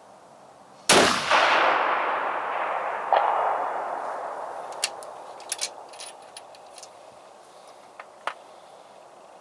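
A single scoped rifle shot about a second in, its report echoing and rolling away over several seconds. About two seconds after the shot a fainter ring returns from the 500-metre range, typical of the bullet striking a steel gong. Then a run of sharp metallic clicks as the rifle and cartridges are handled.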